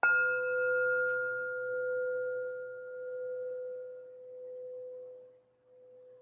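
Small brass singing bowl struck once with a mallet, struck to open a meditation sit. It rings with a low hum and a higher overtone; the higher tone fades out about four seconds in while the low hum carries on, swelling and ebbing as it decays.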